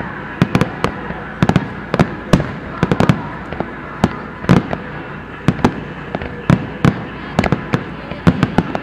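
Aerial fireworks bursting in rapid, irregular succession, several sharp bangs a second, with some louder booms among them.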